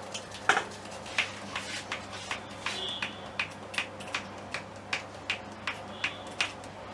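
A steady run of sharp clicks or taps, about three a second, the loudest one about half a second in.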